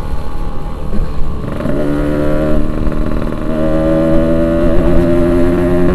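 Yamaha RX-King two-stroke single-cylinder motorcycle engine being ridden hard. About two seconds in, its note climbs and holds at high revs; it drops briefly about three seconds in, then climbs and holds again.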